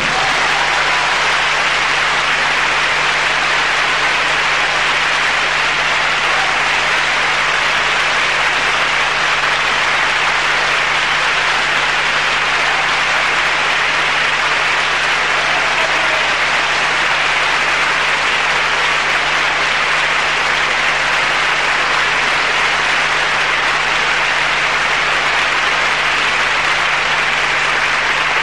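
Audience applauding steadily after the music stops, with a low steady hum underneath.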